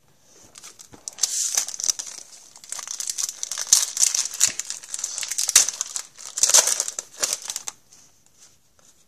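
A hockey card pack's wrapper being torn open and crinkled in the hands, a dense crackling that runs for several seconds and fades out near the end.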